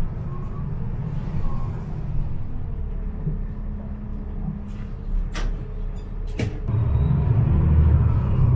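NJ Transit bus heard from inside the cabin, its engine and road noise a steady low rumble. Two sharp clicks come a little past the middle, about a second apart, and the rumble grows louder near the end.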